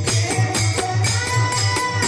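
Devotional bhajan music: a drum beating about three to four strokes a second under jingling percussion, with a long held melodic note through the second half.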